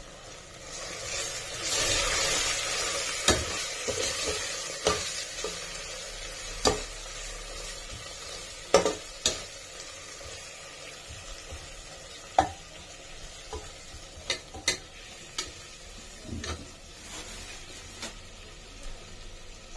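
Onion-tomato and ginger-garlic masala frying in oil in a pan, sizzling while a spoon stirs it. The sizzling swells for a couple of seconds near the start, and scattered sharp clicks of the spoon scraping and tapping the pan run through the rest.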